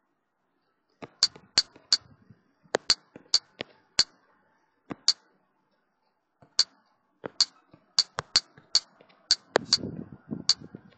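Keypresses on a tablet's on-screen keyboard as a web address is typed: short sharp clicks in an irregular run, a few a second, with a pause of about a second and a half in the middle.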